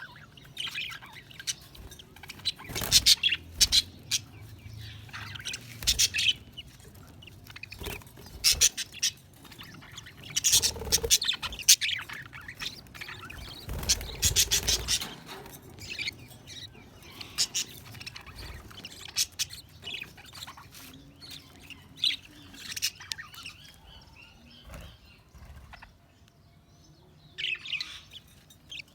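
Budgerigars chirping and warbling in quick, irregular bursts of short high calls, with brief pauses between.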